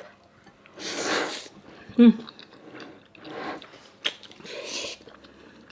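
Close-miked eating sounds: a person chewing food in a few short noisy bursts, with a brief voiced "mm" about two seconds in.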